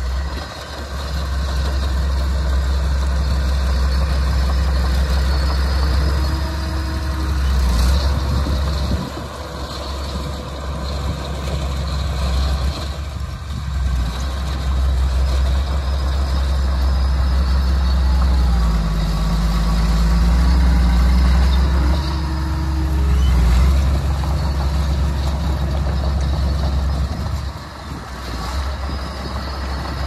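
Small crawler bulldozer's diesel engine running under load as it pushes dirt, its deep steady drone swelling and easing as the machine works, with brief dips about nine seconds in and again near the end.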